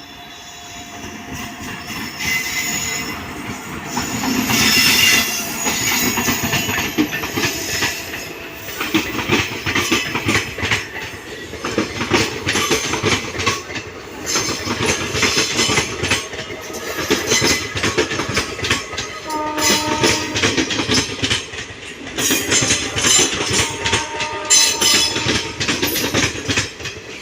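ICF passenger coaches of a departing express train rolling past, wheels clattering over rail joints, with brief wheel squeals. The sound grows louder over the first few seconds, then stays loud with an uneven rhythm of clicks.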